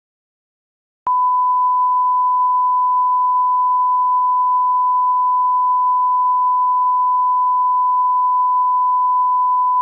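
A broadcast line-up test tone: a single steady pure tone that switches on suddenly about a second in, after dead silence, and holds at one unchanging pitch and level.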